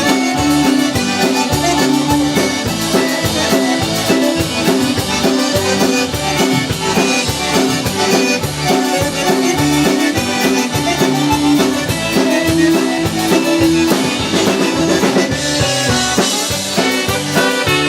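Live dance band playing an instrumental passage with a steady, even beat, after the vocal verse has ended.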